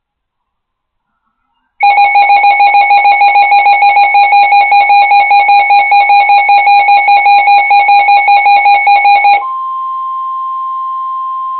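Weather-radio alert tones: a loud electronic alarm beeping rapidly, about five beeps a second, for roughly seven seconds, then switching abruptly to a quieter steady single tone. This is the warning alarm that comes before a severe weather warning is read.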